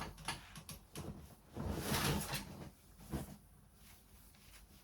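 Rustling and handling noises with a few light clicks, a louder rustle about two seconds in and a single knock a little after three seconds.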